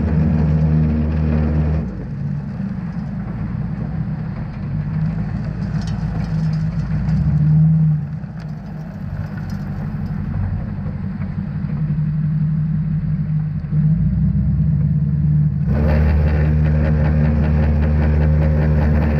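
Truck engine and rear-mounted Salt Dogg SHPE2000 V-box salt spreader running while the truck drives, spreading salt. It is a steady mechanical hum that drops somewhat about two seconds in and comes back up near the end.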